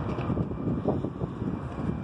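Valley Metro light rail train running, heard as a steady low rumble with wind buffeting the microphone.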